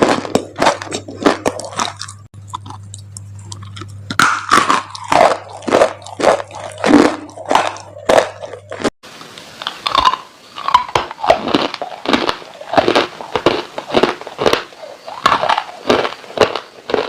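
Dry clay crunching in a quick, irregular run of sharp, dry crunches. A low steady hum lies under the first half and stops abruptly about halfway through.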